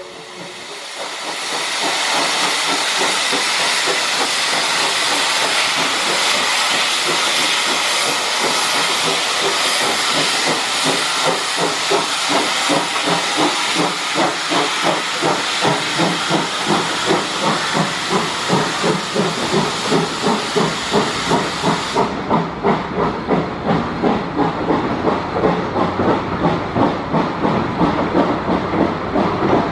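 A 0-4-0 steam locomotive crossing a steel truss bridge overhead, its steam hissing loudly, with a regular beat building under the hiss. About 22 seconds in the hiss cuts off, leaving the train's wheels clicking rhythmically on the bridge about twice a second as the cars roll across.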